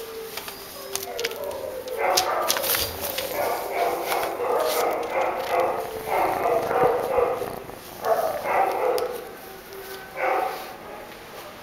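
Dogs barking in repeated bursts, starting about two seconds in and dying down near the end.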